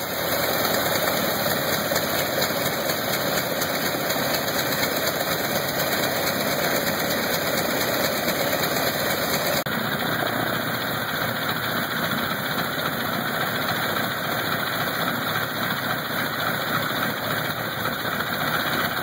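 Lycoming R-680 nine-cylinder air-cooled radial aircraft engine running steadily with its propeller turning, holding an even speed.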